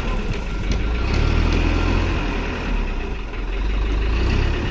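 Heavy diesel engine running, rising in load about a second in and again near the end, with a few sharp clanks over it.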